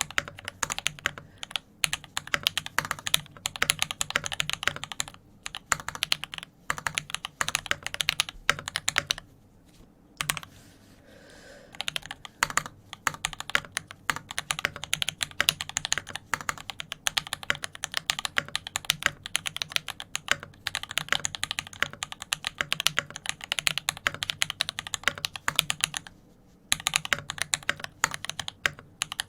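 Steady fast typing on a custom mechanical keyboard with a brass plate and GMK keycaps: dense key clicks and bottom-outs, broken by a pause of about two seconds around a third of the way in and a brief one near the end.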